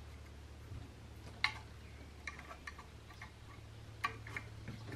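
Scattered light clicks and taps of a Hawken rifle's steel barrel being pressed and seated into its wooden stock, the sharpest about one and a half seconds in and another about four seconds in, over a low steady hum.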